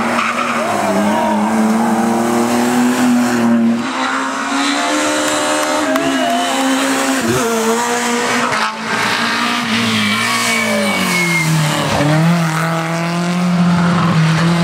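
Racing car engines at high revs through a hairpin on a hill climb, pitch climbing and dropping repeatedly with gear changes and lifts, as several cars pass in turn. Brief tyre squeals about halfway through.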